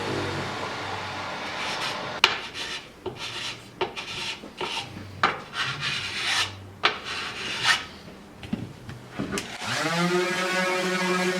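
Irregular scraping and rasping strokes of hand work on a workpiece, after a steady machine noise dies away at the start. Near the end a hum rises in pitch and settles into a steady tone.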